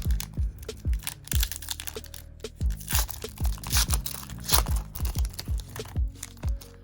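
A trading-card pack's wrapper being torn open and crinkled, loudest about three and four and a half seconds in, over lofi hip-hop background music with a steady kick-drum beat.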